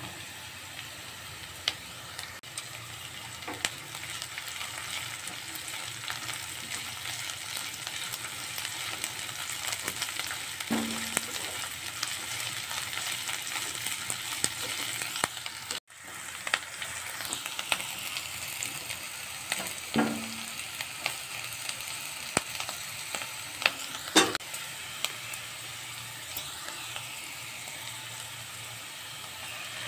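Chopped onion and green capsicum sizzling in hot oil in a nonstick kadai while a spatula stirs them, with a few sharp taps of the spatula against the pan.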